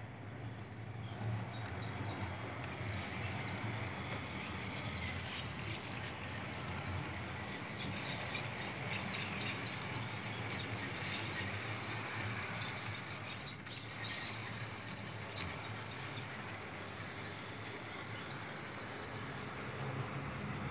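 HO-scale model of the Argo Parahyangan train running along the layout track: a steady rolling of its wheels and motor, louder in the middle as it passes close by.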